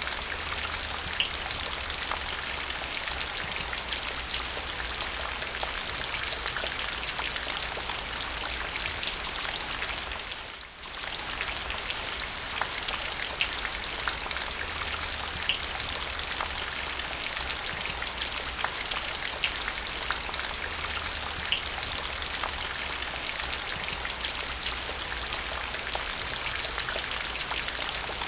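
Steady rain falling into a puddle, with individual drop splashes standing out from the even hiss of the downpour. The sound dips away briefly about ten seconds in, then returns.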